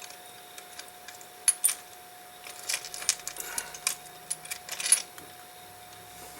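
Small metal watchmaker's tools clicking and clinking at the bench, irregular light taps in a few quick clusters, as an oiler is swapped for another. A faint steady hum runs underneath.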